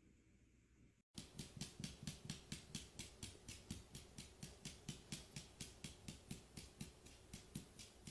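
French bulldog's hind foot thumping rapidly on a hard floor, about five taps a second, in a scratch reflex set off by having its chin scratched. It starts suddenly about a second in, after near silence.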